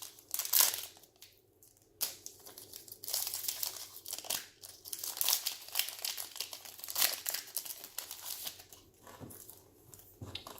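Foil wrapper of a Donruss Optic basketball card pack being torn open and crinkled by hand, with a sharp tear about half a second in, a short pause, then more rustling as the wrapper is pulled off the cards.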